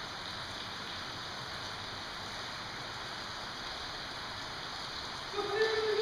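Steady, even hiss of rain falling on the roof of a covered area. Near the end a pitched, held voice-like sound starts over it.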